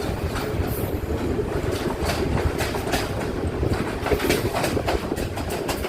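Sri Lankan passenger train running along the track: a steady rumble with irregular clicks and clacks from the wheels on the rails.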